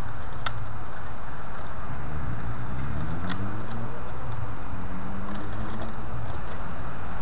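Kennedy industrial magnetic sweeper rolled across dry grass under a steady low rumble, with a few sharp clicks. Around the middle a background hum rises in pitch and then holds.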